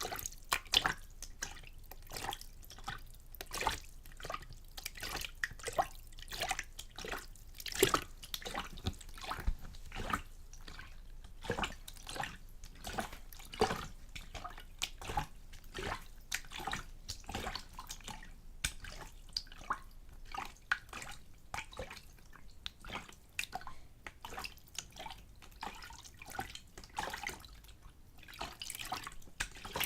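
A small amount of water splashed and sloshed back and forth in a container close to the microphone, with irregular splashes and drips several times a second.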